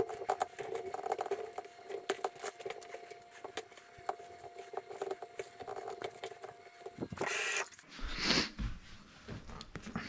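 Hands pushing raw sausages and cubed potatoes around on a parchment-lined baking tray: a busy run of small clicks, taps and paper rustles, with a faint steady tone under them. About seven seconds in this stops with a brief rush of noise, followed by quieter, sparser handling sounds.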